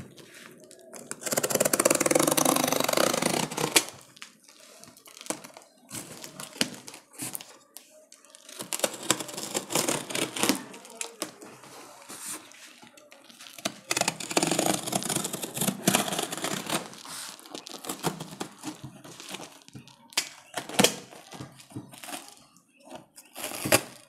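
A box cutter slits the packing tape on a cardboard shipping box, and the box is torn open by hand, with cardboard and packaging crinkling and rustling and many small clicks and scrapes. There are two longer stretches of loud ripping, about a second in and again around the middle.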